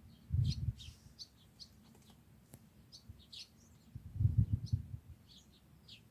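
Small birds chirping in short, repeated high notes, with two brief low rumbles about half a second in and about four seconds in.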